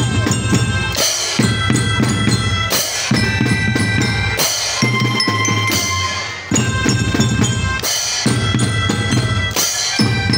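Children's marching drum band playing: melodicas (pianicas) hold a tune of sustained reedy notes over bass drum and snare beats with cymbal crashes.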